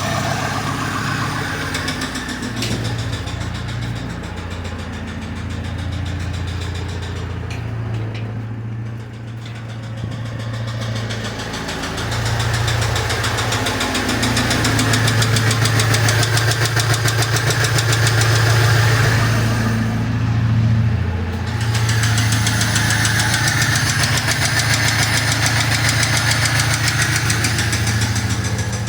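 VAZ-2101 Zhiguli four-cylinder petrol engine running with a rapid knock, a worn piston (wrist) pin that turned out to be the cause of the knocking. The engine gets louder about twelve seconds in, with a brief dip a little past twenty seconds.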